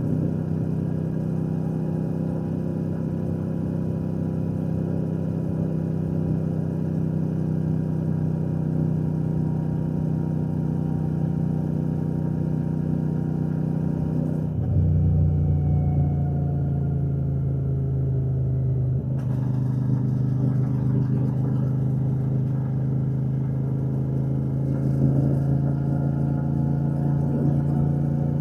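Royal Enfield Shotgun 650's parallel-twin engine and exhaust running steadily under way. About halfway through, the engine note drops to a lower pitch and gets slightly louder, then holds steady.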